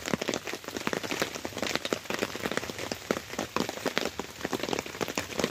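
Heavy rain pelting a tarp shelter overhead: a dense, irregular patter of drops striking the fabric over a steady hiss.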